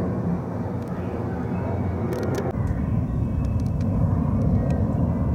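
Jet airliner climbing overhead after take-off: a loud, steady low rumble. Its tone changes abruptly about two and a half seconds in.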